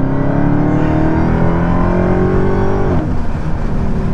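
Dodge Charger Hellcat's supercharged 6.2-litre Hemi V8 under full-throttle acceleration from about 40 mph, its note climbing steadily for about three seconds and then dropping sharply. The rear tires are spinning and squealing as they lose traction, a sign of worn, low-grip tires.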